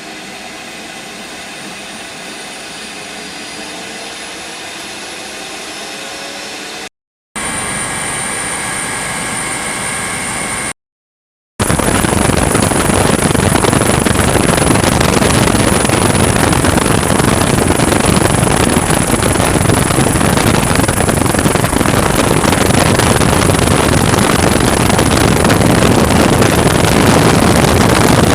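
MH-65 Dolphin helicopter's turbine engines and rotor running, heard in three cuts. In the first, a quieter engine whine rises slowly in pitch. Then comes a short, louder stretch of steady whine, and after a brief gap, loud steady rotor and engine noise with a high turbine whine over it.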